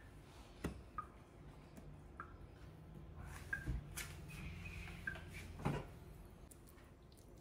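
A few light clicks and knocks as a table knife and stainless steel bowls are handled on a steel sink drainer, over a faint low hum.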